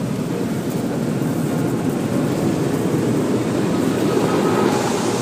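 Car-wash dryer blowers running with a steady, loud rush of air, heard from inside the car.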